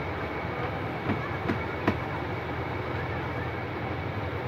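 A few light knocks, three in under a second, as the plastic back cover of a Sony CRT television is handled for removal, over a steady low background rumble.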